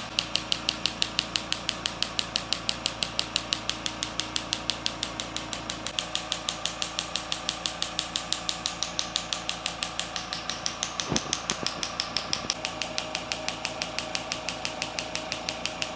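Percussion massage device pulsing steadily against the patient's neck and shoulder muscles, about five strokes a second.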